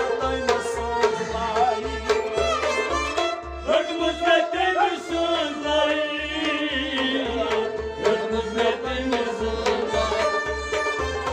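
Harmonium playing a melody over held notes, with a hand drum keeping a steady beat. A voice sings quick, ornamented turns over it in the middle of the passage.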